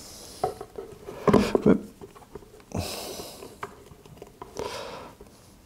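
Handling noise from speaker cabinet panels being fitted together during gluing: a few knocks, the loudest about a second and a half in, and short rubbing noises.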